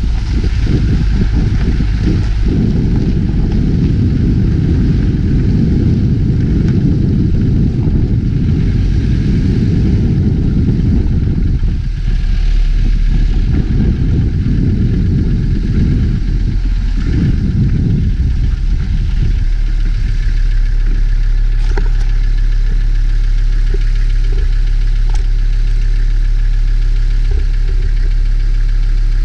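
Engine of the vehicle carrying the camera, rumbling unevenly as it rolls slowly over gravel and grass. About two-thirds of the way through it settles into a steady idle.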